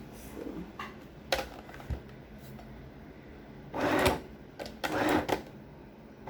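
Sewing machine stitching in two short runs, about half a second each, sewing a very short straight seam to attach a belt loop to a trouser waistband. A few clicks come before the runs.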